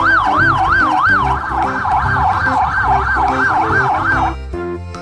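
Police car siren wailing in rapid up-and-down sweeps, which speed up after about a second and cut off near the end.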